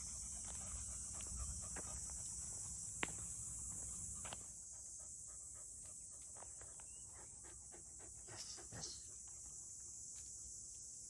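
Labrador retriever puppies panting as they walk, over a steady high-pitched insect drone, with a few light clicks.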